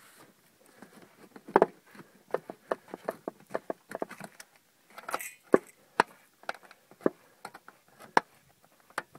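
Hand opener cutting along the lid of a sheet-metal 7.62x54R ammo tin (spam can): an irregular string of sharp metallic clicks and crunches, about two to three a second, as the blade is worked along the seam.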